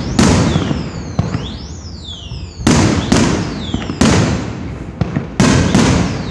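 Fireworks display: a rapid series of loud aerial shell bursts, about six in six seconds, each trailing off in a crackle. High whistles gliding down in pitch sound between the bangs.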